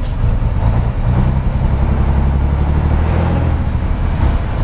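Scania 112 truck's diesel engine, an 11-litre straight-six with a straight-through exhaust, running under load as the truck pulls away in a low gear, heard from inside the cab. Its low, steady engine note fills the cab.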